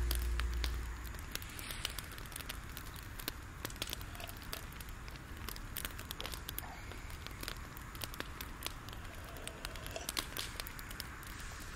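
A freshly lit Daiso 300-yen disposable grill burning, its fuel crackling with many small irregular pops and ticks as the flames take hold under the wire mesh.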